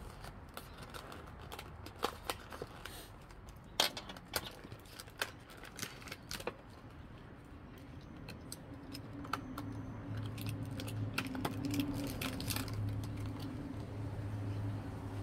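Light clicks, taps and rattles of a diecast model's packaging being handled, most of them in the first half. A low steady hum sets in about ten seconds in and holds.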